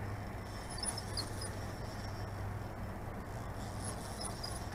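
Spinning reel being cranked as a hooked catfish is played on the line, under a steady low hum. Short high squeaks come about a second in and again near the end.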